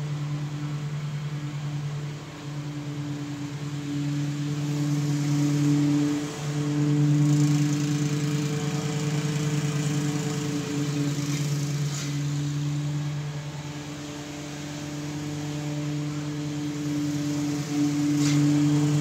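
A Honda 270 cc, 8.5 hp single-cylinder engine running steadily at a distance, a low pitched hum that grows louder and fainter as the machine moves along the yard.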